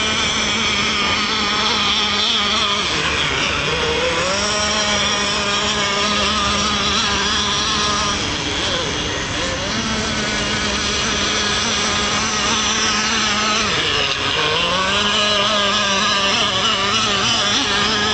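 Small nitro (glow-fuel) engine of an RC outboard model boat running at high revs, its buzzing pitch dipping as the throttle eases off and climbing back up three times, about three, nine and fourteen seconds in.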